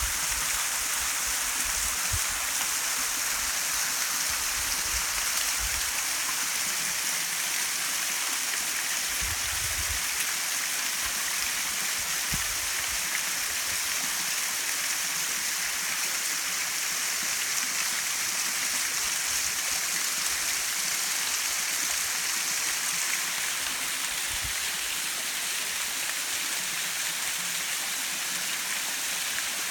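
Waterfall: a steady, unbroken rush of falling water, with a few brief low bumps.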